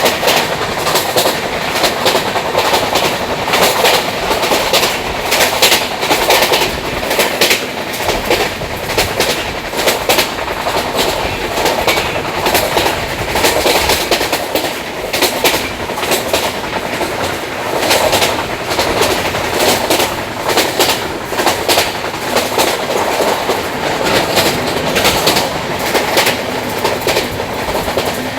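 Moving train running steadily on the rails: a continuous rumble and rush of wheels on track, with frequent clickety-clack clicks as the wheels pass over rail joints.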